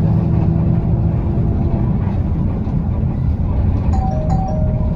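TransJakarta city bus running, heard from inside the cabin: a steady low engine and road rumble with a hum. Near the end, a short high-then-low electronic tone sounds twice.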